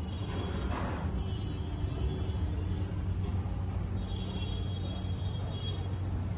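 Steady low droning hum with a faint haze of background noise above it, and no distinct events.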